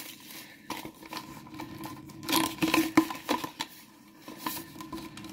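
A cardboard toy box being handled and opened by hand: rustling, scraping and light clicks of the card as the flap comes open, busiest about two to three seconds in.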